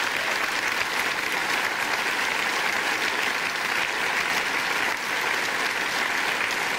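Large studio audience applauding: steady, even clapping.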